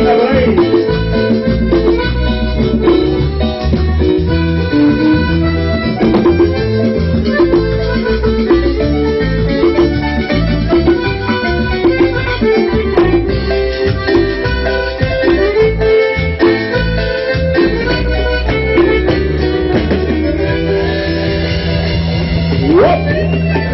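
Live band playing an instrumental cumbia passage, the melody carried by accordion over a steady bass line and rhythmic percussion.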